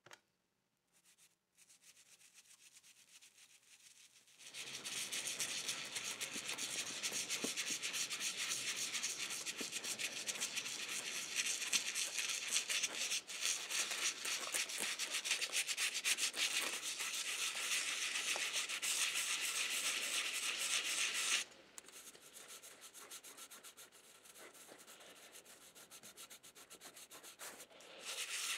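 A small brush scrubbing cream cleanser over a brass locomotive model shell: rapid, scratchy bristle-on-metal rubbing that works off the tarnish. A few light handling ticks come first. The scrubbing starts about four seconds in, goes softer about three-quarters of the way through, and picks up again at the very end.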